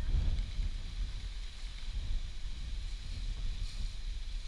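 Wind buffeting a head-mounted camera's microphone: an uneven low rumble.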